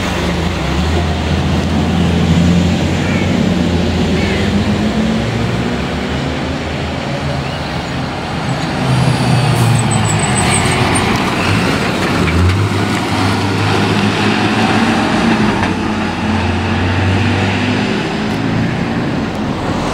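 Heavy fire engines driving past one after another, their engines running, with the low engine sound swelling and changing as each truck comes by.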